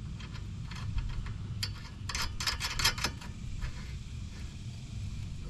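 Small metallic clicks and ticks as a castle nut is turned by hand onto the threaded stud of a new steering tie rod end, with a quick run of clicks about two to three seconds in. A steady low rumble lies underneath.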